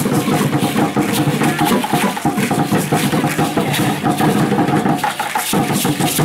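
Aztec dance drumming: tall wooden huehuetl drums beating with a dense shaking rattle over them, the dancers' ankle rattles sounding with their steps.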